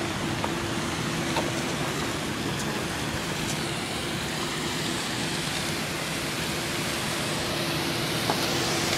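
Waterfall: a steady rush of falling water, with a faint steady low hum underneath.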